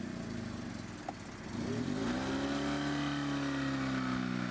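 Opel Frontera's engine, low at first, revs up about two seconds in and then holds a steady drone under load as it tows the small Oka car through the mud.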